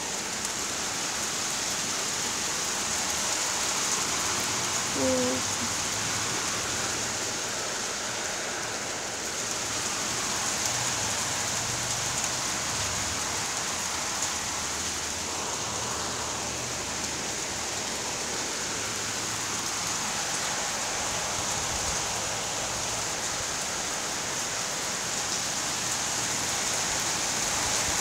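Heavy rain pouring down steadily in a storm, a continuous hiss of water hitting surfaces. A brief tone sounds once about five seconds in.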